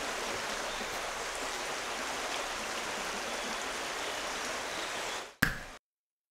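Steady rushing of a stream's running water. It fades near the end, then a single sharp click, and the sound cuts off to silence.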